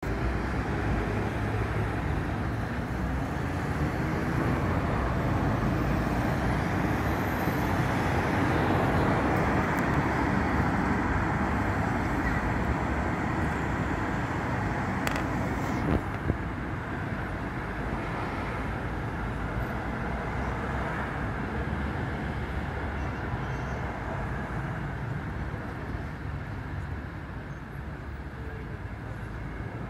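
City road traffic: a steady noise of cars and vans passing on a multi-lane road, louder in the first half and easing off after about sixteen seconds, with a short knock about halfway through.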